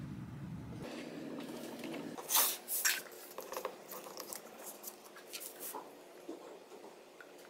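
Handling of plastic CA glue bottles on a workbench: two sharp knocks a little over two seconds in, then lighter clicks and rustles, over a low steady hum that drops away about two seconds in.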